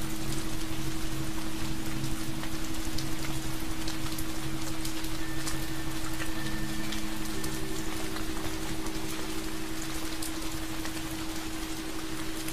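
Steady rain falling, with scattered individual drop clicks, over low tones held steady underneath.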